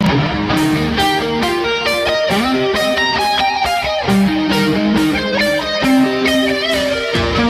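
Background music led by electric guitar, with a steady beat of about two strokes a second.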